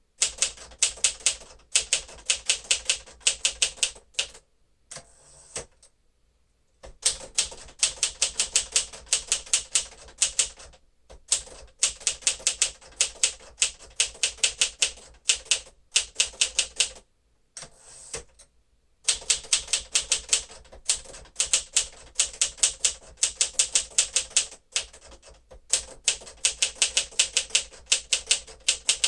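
1954 Smith-Corona Silent-Super manual typewriter being typed on at a quick, steady pace: runs of sharp type-bar strikes with a few short pauses between lines.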